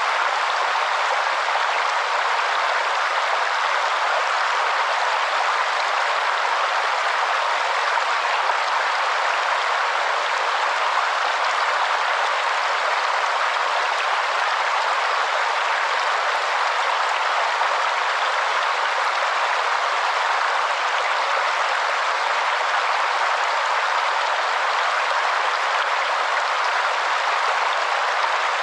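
Waterfall: a steady rush of falling water with no change in level. The sound sits in the middle and upper range and has no low rumble.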